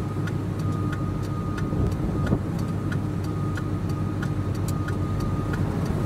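Vehicle engine idling steadily, with a rapid, even ticking about three times a second and a faint steady high tone over it.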